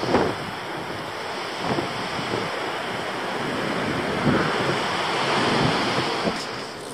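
Wind buffeting the camera microphone on a moving e-bike: a steady rushing that swells gently through the middle and eases near the end, with a brief gust just after the start.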